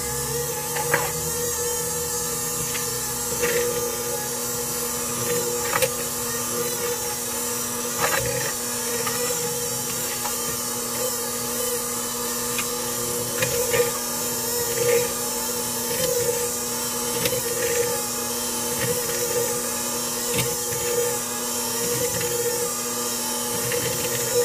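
KitchenAid 9-speed hand mixer running steadily, its wire beaters beating crumbly dough in a bowl, with scattered short clicks.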